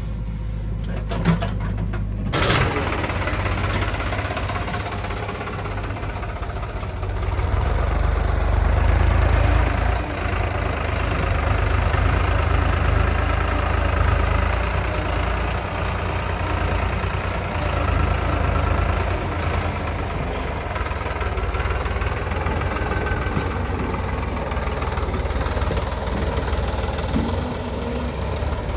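Heavy diesel engine of a tractor or backhoe loader running steadily, with a sharp click just over a second in. The sound comes up suddenly about two seconds in and swells for a couple of seconds around eight seconds in.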